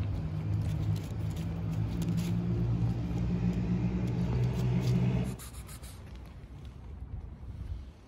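An engine idling steadily, a low even hum, with faint clicks of a cat eating wet food from a plastic plate; about five seconds in the hum cuts off and a quieter background remains.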